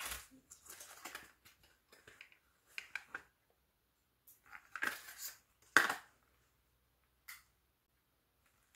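A small cardboard box with a plastic window being handled and opened, and a plastic item slid out of it: irregular rustles and scrapes, with one sharp knock about six seconds in.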